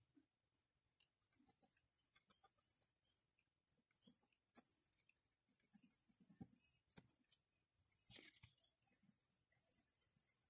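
Faint, short scratchy strokes of a mechanical pencil's lead on paper while sketching, with small clicks between them; the strongest stroke comes about eight seconds in.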